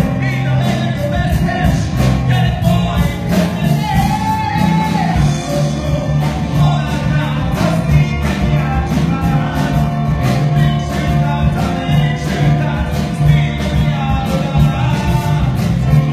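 Live musical-theatre performance: voices singing over a band, with a strong bass line and regular drum beats throughout.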